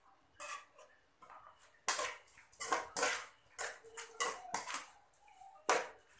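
Metal spoon scraping and clinking against the inside of an aluminium pot as minced pork laab is stirred and mixed: an irregular run of clanks and scrapes, the loudest a little before the end.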